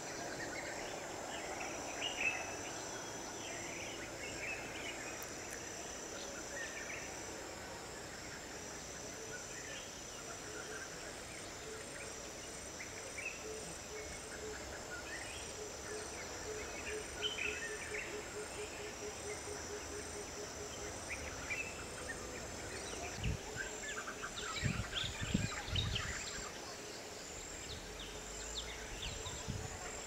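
Forest ambience: a steady high-pitched insect drone with a regular pulsing chirr over it, and scattered short bird chirps. A low, rapidly pulsing note runs for several seconds midway, and a few dull low thumps come in the last third.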